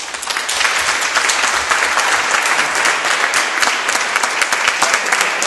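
Audience applauding: many people clapping together, swelling in the first half second and then holding steady.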